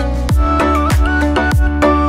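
Upbeat background music with a steady kick-drum beat, about two beats a second, under a held melody.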